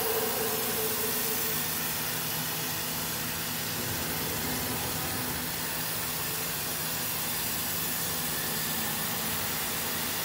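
Aluminium-profile CNC drilling-milling machine running between cuts as its spindle head travels along the bed: a steady hiss with a faint low hum. A pitched whine fades out about half a second in.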